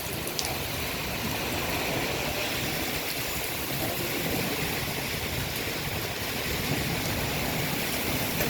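Heavy rain falling steadily, an even rushing noise.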